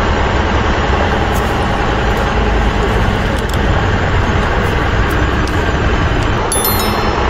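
Heavy truck engine running steadily, an even dense noise with a strong low end, with a brief high chime near the end.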